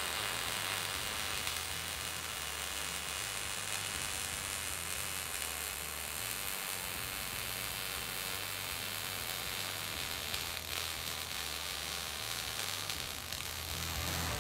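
Robotic MIG welding arc from a Miller XMT350 inverter welder on 1.2 mm solid wire with 80/20 mixed shielding gas at about 180–200 A and 18 V, giving a steady, even crackle throughout the bead. The current is reported as holding steady at 190–200 A, the sign of a stable arc.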